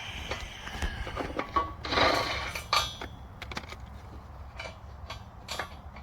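Metal parts and hand tools knocking and clanking against a wooden pallet as sawmill parts are unbolted from it, with a louder scraping rush about two seconds in and a sharp clank just after.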